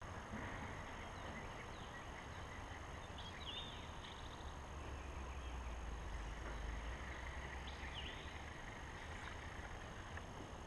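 Steady outdoor background hiss and low rumble on the water, with a few short chirping calls from birds and a faint steady high whine.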